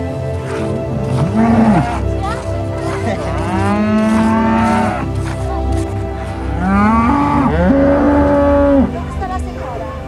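Cattle mooing: a short moo about a second and a half in, then several long, drawn-out moos around the middle and near the end.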